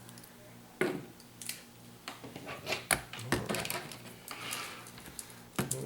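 Small hard plastic clicks and clatter from Bakugan toys being handled and set down, several scattered knocks.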